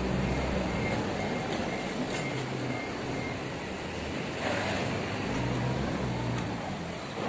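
Forklift with a paper-roll clamp driving up, its engine running with a low note that shifts in pitch, under a steady rushing noise that swells about four and a half seconds in.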